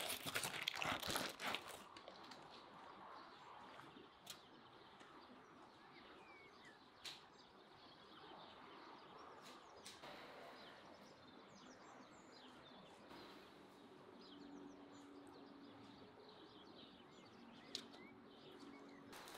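Baking paper crinkling for the first couple of seconds, then faint quiet ambience with a few soft bird chirps and occasional small clicks.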